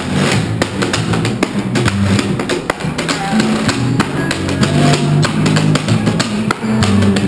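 Old-time string band playing live: upright bass moving through low notes under a plucked banjo, with washboard scraped and tapped and small cymbals struck in a busy, steady rhythm of clicks.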